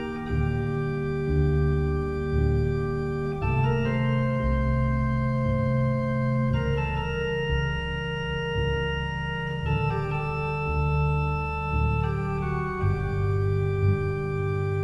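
Background music: held organ chords that change every three seconds or so over a pulsing low bass line.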